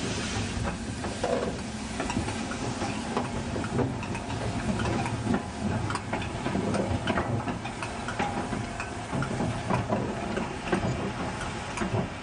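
LMS Black 5 4-6-0 steam locomotive creeping past at walking pace, steam hissing from its cylinders, with irregular clanks and clicks from its rods and wheels.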